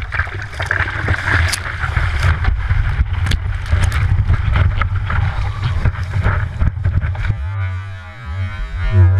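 Ocean water rushing and splashing over a surfboard and its nose-mounted camera while the surfer paddles into and rides a wave, with a heavy low rumble of water and wind on the microphone and sharp splashes of spray. About seven seconds in it cuts abruptly to music.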